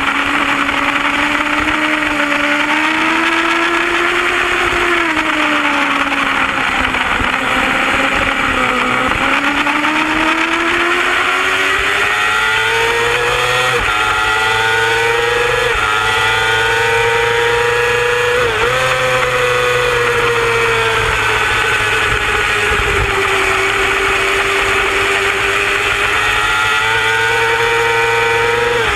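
A superbike's engine at racing revs, heard from an onboard camera over rushing wind noise. The engine note sinks to its lowest about a third of the way in, as the bike slows for a corner, then climbs again on the throttle. Its pitch drops briefly a few times in the middle, at the gear changes.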